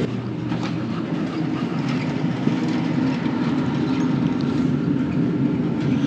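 Air conditioning equipment running steadily: a constant low hum with a rushing, airy noise over it.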